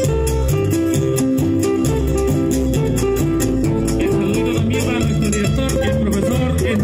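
Instrumental passage of Latin American music played live by a small acoustic band: acoustic guitars plucking a melody over an electric bass line, with cajón and a rattling percussion keeping a steady beat.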